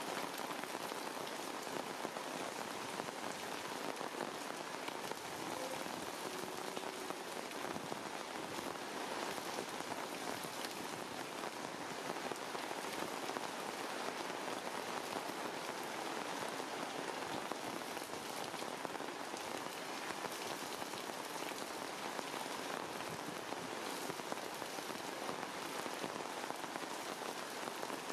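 Steady rain falling on leaves in a forest canopy, a continuous patter of many drops.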